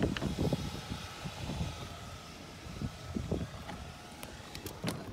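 Wind rumbling unevenly on the microphone, with light handling knocks and a sharp click near the end as the car's rear door and interior are handled.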